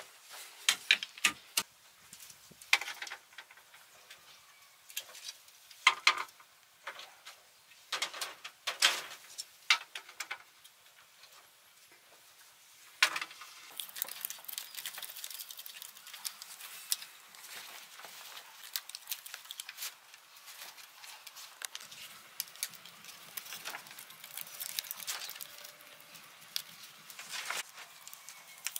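Bamboo poles and lashing strips being handled and tied: sharp knocks and clatters of pole on pole for the first ten seconds or so, then denser rustling and scraping of the bamboo strips with scattered clicks.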